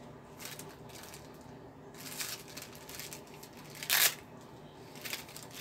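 Small packaging being handled and rustled, with faint scattered crinkles and clicks and one louder, short crackle about four seconds in.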